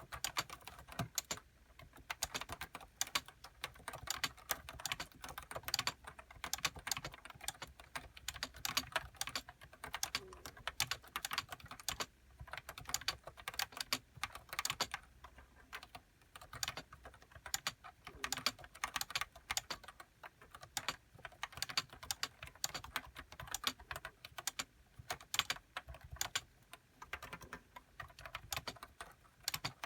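Continuous typing on a Nissho KB106DE keyboard with uniform 30 g Topre capacitive rubber-dome switches and HiPro keycaps: a steady, uneven stream of key strokes.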